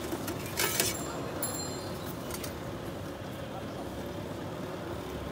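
Outdoor street-stall ambience: a murmur of voices over a steady background hum, with a few sharp clinks of metal utensils about half a second in and again around two seconds in.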